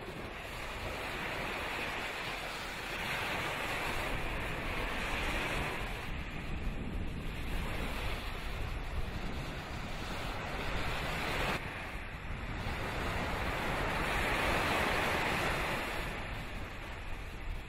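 Rushing wind and sea noise, wind buffeting the microphone, swelling and fading slowly, with an abrupt change about twelve seconds in.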